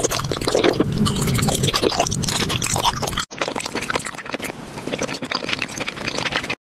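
Crunchy chewing of candy, dense rapid crackles and crunches. It breaks off briefly a little past three seconds in and resumes a little quieter.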